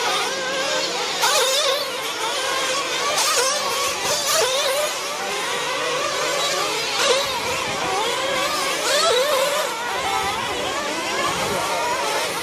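Several 1/8-scale nitro RC truggies racing together, their small engines revving up and down in a high whine that keeps rising and falling with throttle and braking.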